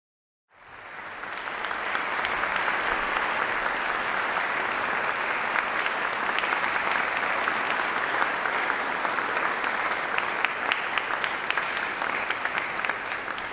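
Audience applauding. It swells in just after a moment of silence, holds steady with many individual claps, and dies down near the end.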